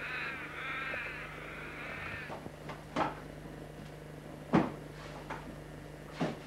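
A quick run of repeated high calls for about the first two seconds. Then sharp cracks and knocks from a night campfire, about five of them, the loudest about four and a half seconds in.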